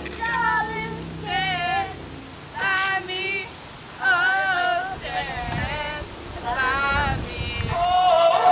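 A girl singing unaccompanied in short phrases of held, wavering notes with pauses between them.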